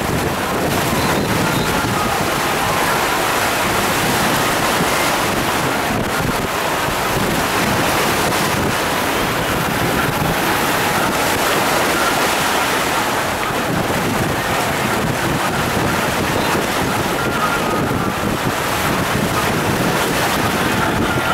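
Sea waves washing and breaking under steady wind noise on the microphone, an even rushing that does not let up.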